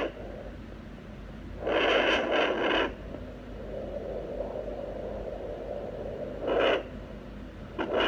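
Handheld fetal Doppler monitor's loudspeaker giving bursts of scraping noise as the probe is moved over the gel on the pregnant belly: one at the start, a longer run about two seconds in and another near the end, with a steady hiss between. These are probe-movement and blood-flow sounds while searching, not the fetal heartbeat.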